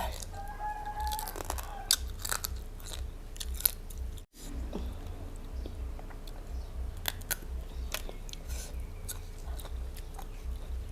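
A person chewing and crunching food close to the microphone, with wet mouth clicks over a steady rhythm of chewing, and a split-second cut to silence about four seconds in.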